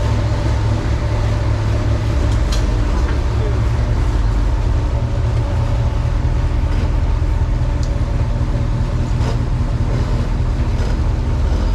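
Willys jeep's engine running steadily under way, a low even drone, with a few light clicks and rattles.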